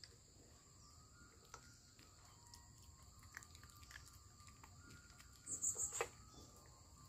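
Puppy eating dry Drools kibble from a stainless steel bowl: faint scattered crunches and clicks, with a louder burst of crunching about five and a half seconds in. A steady high insect drone runs underneath.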